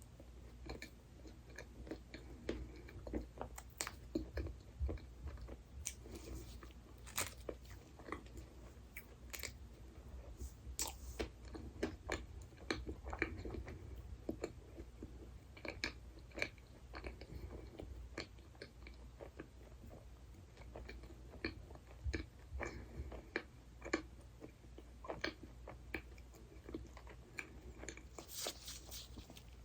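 A person chewing and biting into a dessert close to the microphone, with wet chewing and many small crunchy crackles at an uneven pace. A brief rustle comes near the end.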